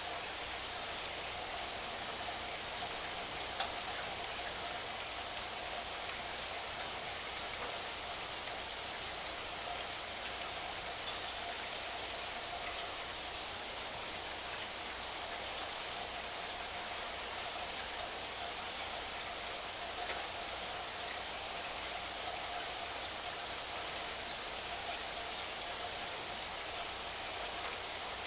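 Steady rain falling, an even hiss with a few faint drop ticks scattered through it.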